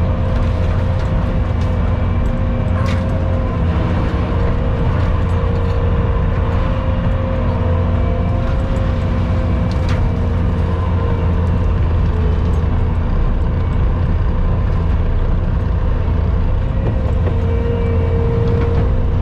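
Skid steer engine running steadily with a constant hum and a steady whine, with two faint clicks about three and ten seconds in.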